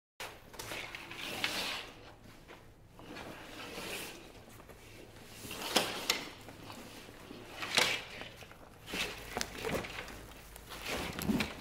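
A nylon tactical backpack being handled and unzipped: fabric rustling and zipper pulls, with a few sharp clicks and knocks as the main compartment is folded open.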